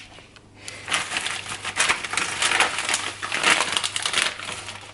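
Thin plastic bag crinkling and rustling as a hand rummages inside it, a dense run of crackles starting about half a second in and dying away near the end.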